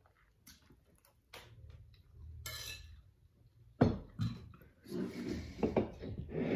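Metal fork clinking and scraping on a ceramic dinner plate, with one sharp knock about four seconds in.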